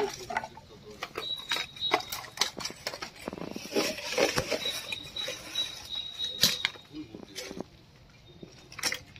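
Plastic bags and scrap rustling and clattering as a metal snake hook and a hand dig through a rubbish heap, with many scattered knocks and clicks. A faint high steady tone comes and goes twice.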